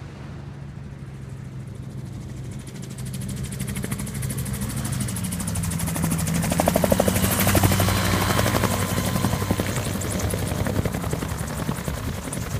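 MTO Sport autogyro's engine and pusher propeller, growing louder as the gyro runs along the sand and lifts off. It is loudest as it passes about seven seconds in, then eases off, its pitch dropping.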